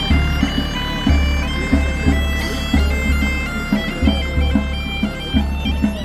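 Bagpipe playing a lively folk tune over its steady drone, with a drum beating along underneath.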